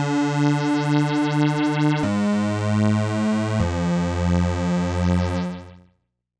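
Crumar Stratus analog synthesizer playing sustained, buzzy notes with a pulsing throb about three times a second. The pitch steps down twice, about two seconds in and again a second and a half later, before the sound cuts off near the end.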